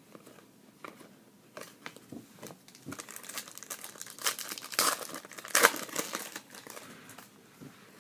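Panini Contenders hockey card pack being torn open, its wrapper crinkling. Light rustles and clicks come first; the crinkling grows thick and loud from a few seconds in, then dies down as the cards come out.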